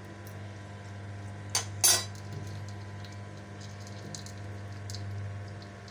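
Two sharp metallic clinks in quick succession about a second and a half in: metal tongs knocking against a small steel bowl as a lump of charcoal is set into it. A steady low hum runs underneath.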